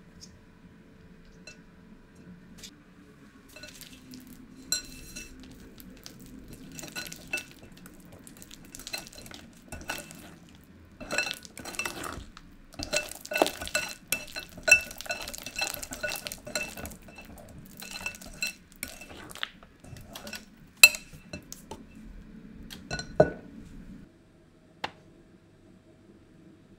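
A wire whisk beating batter in a glass bowl: its wires clink and tick against the glass in quick, irregular strokes, each with a short ringing note. The clinking stops suddenly near the end.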